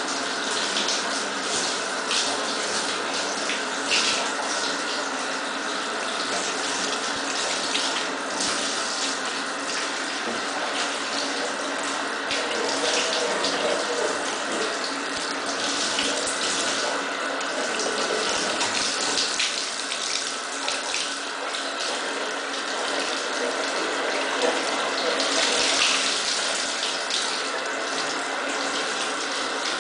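Water spraying steadily from a handheld shower head onto a cat and splashing in a bathtub, with brief louder surges now and then.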